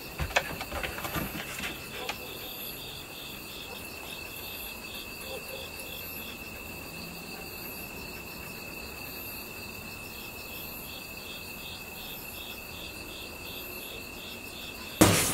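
Crickets chirping steadily in the background, a high trill with regular pulses about twice a second. A few light taps early on, and a loud sudden sound breaks in at the very end.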